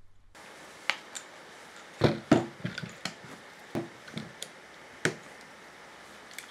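Quick-release bar clamps being released and handled, and a taped bundle of thin plywood strips set down on a wooden workbench: a scatter of sharp clicks and knocks, loudest about two seconds in.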